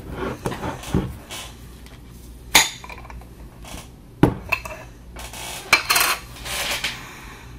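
Metal screw lid being twisted and worked off a glass jar of pickle chips: scraping and rubbing of lid on glass, with two sharp clicks a couple of seconds apart and more scraping toward the end.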